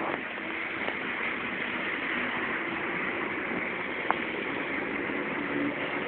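Steady road noise of a car driving on a rain-wet freeway: tyre hiss with a low engine hum underneath, and a single sharp tick about four seconds in.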